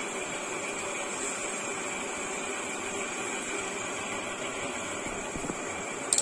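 Steady hum and hiss of running room machinery, with a short burst of sharp clicks near the end as the cardboard headphone box is handled.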